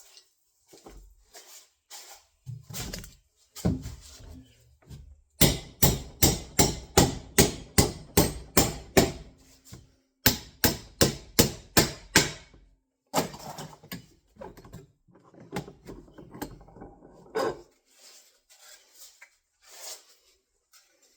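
Hammer blows during carpentry: two quick runs of sharp, even strikes at about three a second, with lighter knocks and handling sounds before and after.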